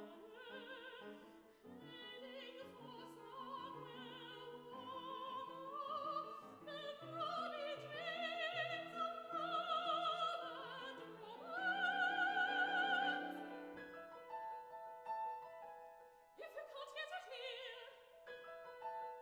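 Soprano singing an opera aria with piano accompaniment, her line climbing to a loud high held note with wide vibrato about twelve seconds in. The piano carries on alone for a couple of seconds before she comes in again near the end.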